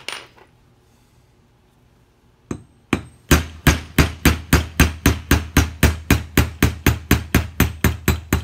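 Hammer striking a pin punch to drive a press-fit pin out of an AK-47's gas block: two single taps, then a steady run of about four sharp metallic strikes a second, each with a brief ring.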